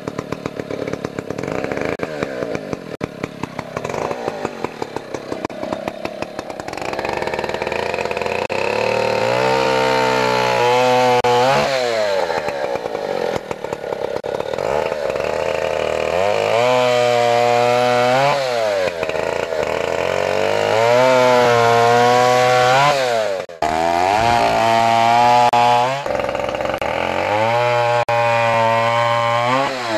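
1959 Stihl Contra chainsaw's 106 cc single-cylinder two-stroke engine, first running unevenly at low speed, then opened up and sawing through a wooden beam: its pitch climbs and sags again and again as it works through several cuts.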